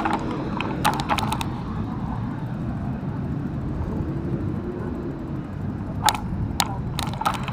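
Steady rumble of busy city road traffic, with a couple of short clusters of sharp clicks or knocks, about a second in and again near the end.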